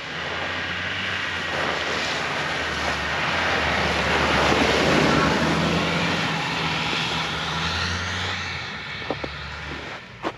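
Orange Land Rover Defender driving past through snow, its engine running steadily with tyre noise on the snowy track, loudest about halfway through as it passes and fading as it pulls away. A few sharp crunches of footsteps in snow near the end.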